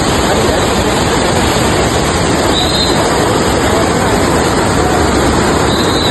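Steady rushing of wind and road noise on a moving motorbike, buffeting the microphone. Two short high tones sound about three seconds apart.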